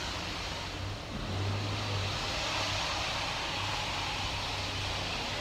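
Steady machine hum with an even rushing, air-like noise over it, swelling slightly about a second and a half in.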